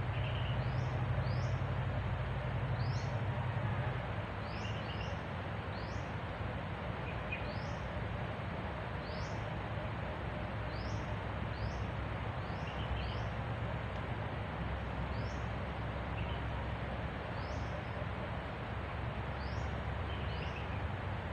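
Forest ambience: short high chirps repeating irregularly about once a second over a steady hiss, with a low rumble that eases about four seconds in.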